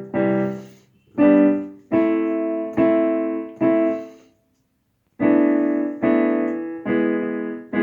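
Piano-sound keyboard playing slow chords, each struck and left to fade, about one a second, with a brief silent pause near the middle.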